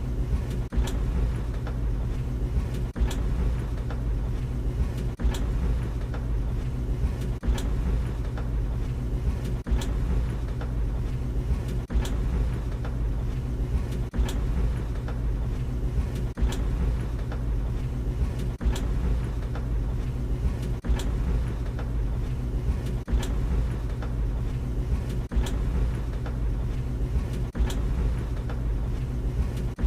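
Tumble dryer running: a steady low motor and drum hum, with clothes or something in the load knocking against the turning drum about every two seconds and lighter clicks in between.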